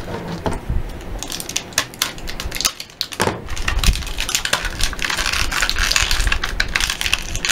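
Rustling and crinkling from hands working with small plastic items, with many small clicks and taps. It grows thicker and busier about halfway through.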